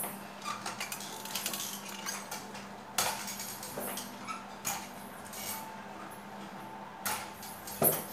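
Crutches knocking and clicking on a stone terrazzo floor as a person walks on them, with metallic clinks between the knocks; the loudest knocks come about three seconds in and just before the end.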